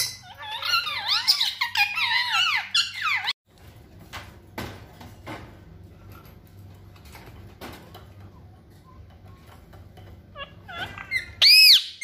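Pet parrot chattering in fast squeaky calls that slide up and down in pitch for about three seconds, then stopping abruptly. Faint scattered clicks follow, and then two loud, shrill arching calls near the end.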